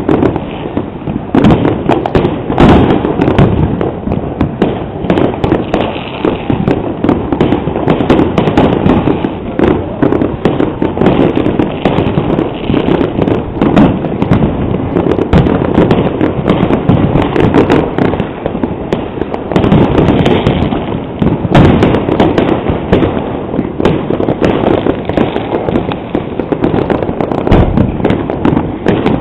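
Dense, continuous barrage of fireworks and firecrackers going off all around, sharp cracks and heavier booms overlapping without a pause. Picked up by a digital camera's microphone, with poor sound quality.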